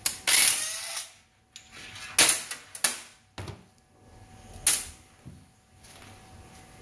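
Aerosol brake cleaner sprayed in short hissing bursts to clean a metal mating surface. The first burst is the longest, just under a second, followed by three shorter ones, with light knocks of the part being handled.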